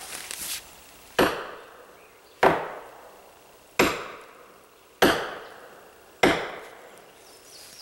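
Sledgehammer striking a steel felling wedge in the back cut of a leaning rotten tree, driving it in to push the tree over. Five blows about every 1.2 seconds, each ringing briefly.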